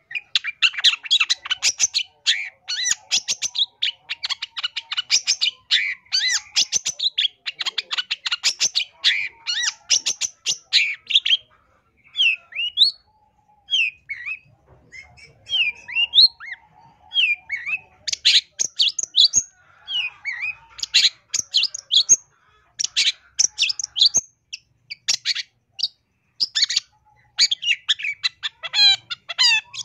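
Long-tailed shrike (cendet) singing a varied, mimicry-filled song. It gives fast chattering runs of high notes for about the first ten seconds, then single slurred whistled notes with short pauses, then fast runs again from just past the middle.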